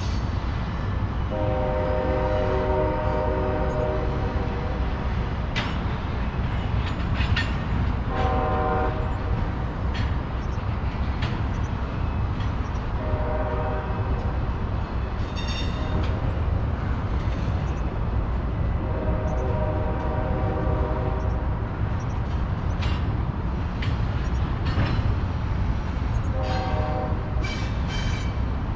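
Union Pacific container freight train rolling past with a steady low rumble and scattered sharp clanks from the cars. A locomotive air horn sounds a chord five times: two long blasts of about three seconds and three shorter ones of one to two seconds.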